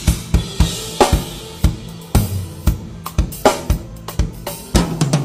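Drum kit played solo: a quick run of bass drum and snare strikes with cymbal crashes.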